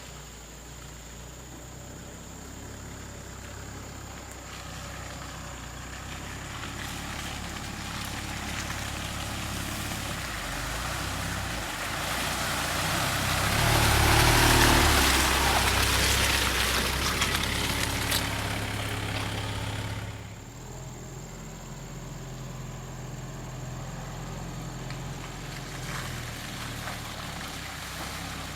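Truck engine running, growing steadily louder to a loud, rough peak about halfway through, then dropping back suddenly at about two-thirds of the way and running on more quietly.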